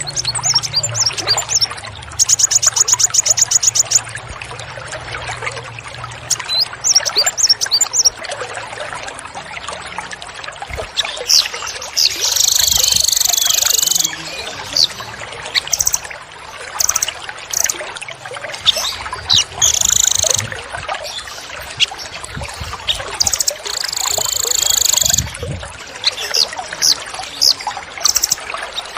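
Small songbirds giving sharp, rapid calls over a steady trickle of running water. A fast trill comes near the start, then three longer, harsh high calls later on, with scattered short chirps between.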